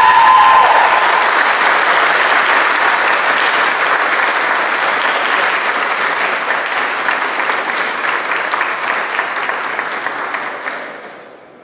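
Audience applauding, a dense, steady clapping that fades out about ten seconds in.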